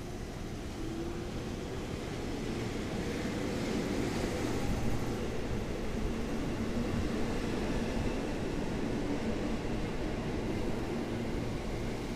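Former JR East 205 series electric commuter train running past close by along a station platform: a steady rumble of wheels on rail and running gear, growing a little louder over the first few seconds.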